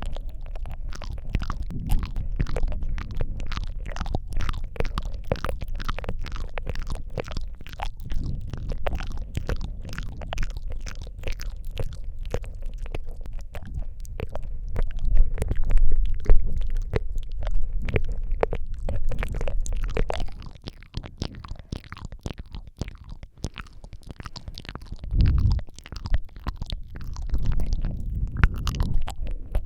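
Wet ASMR mouth sounds made right up against the microphone: a dense, continuous run of small clicks, licks and smacks over a low rumble. It grows louder about halfway through, then quietens after about twenty seconds.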